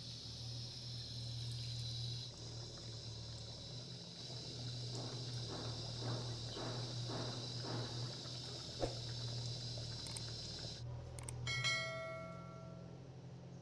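Water pouring from a pot into a wok of chicken curry, easing off about two seconds in, over a steady low hum. Then a run of soft rustles, and near the end a short ringing bell chime: the notification-bell sound effect of a 'subscribed' button animation.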